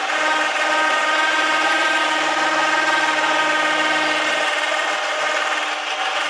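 Winch motor running steadily with an even whine, paying out its steel cable as the boat is lowered down the roller ramp.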